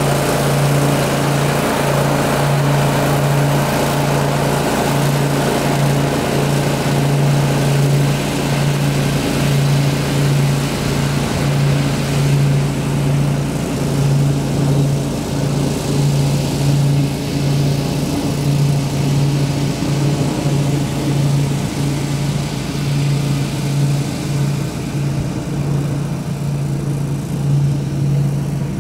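Ariens Zoom 42 zero-turn mower running with its blades engaged, its engine and cutting noise fading about halfway through as it moves away. A steady loud low drone, pulsing about once a second, holds throughout.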